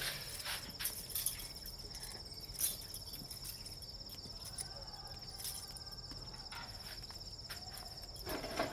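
Crickets trilling steadily in one continuous high chirr, with a few soft clicks and knocks scattered through, the loudest about two and a half seconds in.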